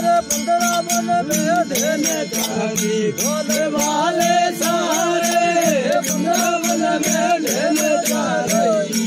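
Devotional folk bhajan music: a steady drone with jingling percussion strokes about three or four times a second. Over it a melody line with sliding, bending notes comes in about a second in and drops out near the end.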